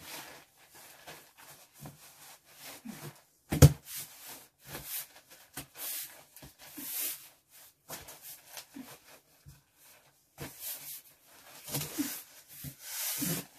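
Rustling of clothes and crinkling cardboard as someone kneels and shifts inside a cardboard box packed with clothes, with one sharp thump about four seconds in.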